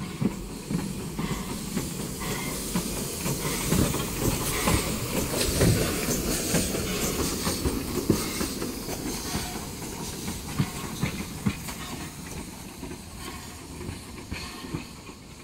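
Steam locomotive 'Freshwater', a small LB&SCR Terrier tank engine, running light past the platform with steam hissing and irregular knocks and clicks from its running gear. It is loudest as it passes and fades as it draws away near the end.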